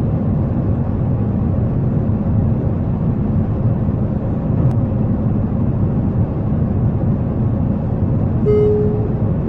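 Steady low rumble of a jet airliner in flight, with a short pitched tone near the end.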